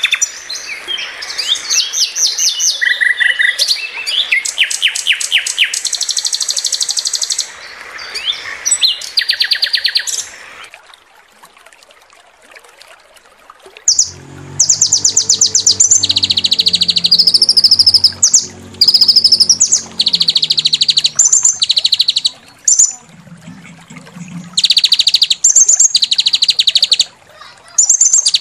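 Mixed songbird song from a masteran training recording: harsh, rapid chattering trills and stuttering 'shot' phrases in short repeated bursts, with a brief quieter pause about halfway. A low droning layer runs under the birds for several seconds after the pause.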